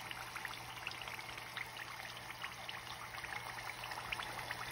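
Sakinalu, rings of rice-flour dough, sizzling as they deep-fry in hot oil in a steel pot: a steady hiss with many small crackling pops.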